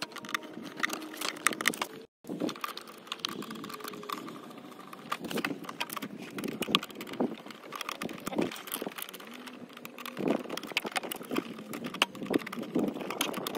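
Screwdriver working the brass terminal screws of a mechanical pool timer, with irregular metal clicks and scrapes as wires are set under the screws and tightened. The sound drops out briefly about two seconds in.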